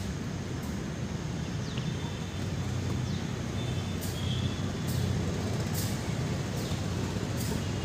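A steady low rumble with no clear rhythm, with faint high bird chirps and a few brief high ticks over it.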